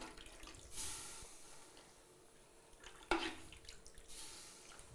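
Vegetable soup ladled from a pot and poured into an earthenware bowl of bread: soft liquid splashes and drips about a second in, around three seconds and again near four seconds.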